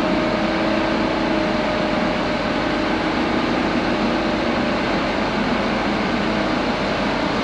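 Ford 7.3 L Powerstroke V8 turbo-diesel running at a steady speed, heard from inside the cab as an even, unchanging drone.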